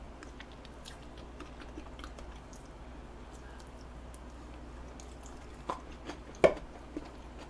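Faint wet mouth sounds of someone chewing soft cheesecake, with small scattered clicks and two sharper clicks about six seconds in.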